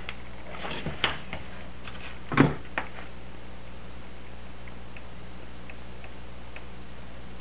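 Handling noise: a few light clicks and knocks, the loudest a thud about two and a half seconds in, then faint ticks, over a steady low hum.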